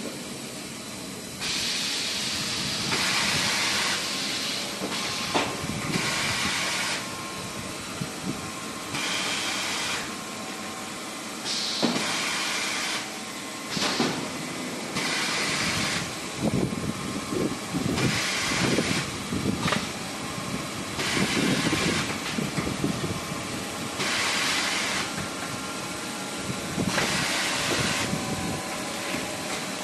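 Automatic band saw tissue-roll cutting machine running through its cycle: bursts of hiss about one to two seconds long come every couple of seconds over a steady mechanical run, with a few sharp knocks.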